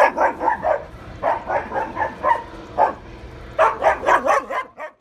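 A dog barking in quick runs of short barks, several a second, with brief pauses between the runs; the barking cuts off abruptly near the end.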